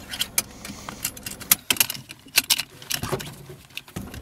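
A bunch of car keys jangling and clicking in short, irregular bursts as they are handled.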